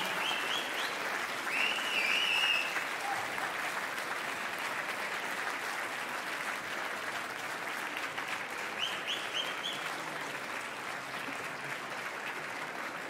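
Large audience applauding steadily, the clapping easing off slightly toward the end.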